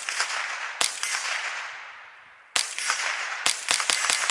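Ruger 10/22 .22 LR semi-automatic rifle firing: a shot about a second in, another just past the middle, then a quick string of cracks near the end, each shot trailing off in an echo.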